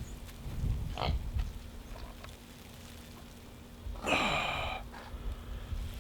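Pet pig grunting and snuffling, with one louder, falling call about four seconds in.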